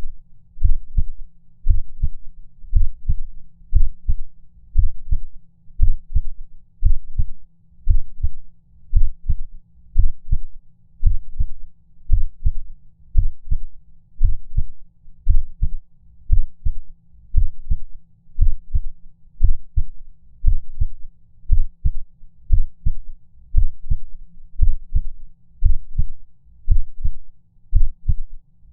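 Heartbeat sound effect of a heart skipping beats: low, paired thumps repeating about once a second.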